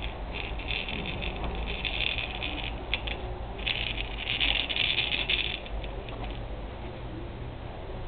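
A baby's toy rattle shaken in two bursts of quick, jingly rattling, each about two seconds long.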